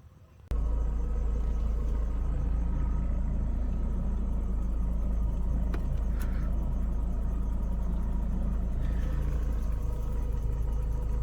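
Lada Priora's engine, converted to run on LPG as well as petrol, idling steadily, heard close with a heavy low rumble. The sound cuts in abruptly about half a second in. The car has a complaint of not holding its revs, but here the idle sounds even.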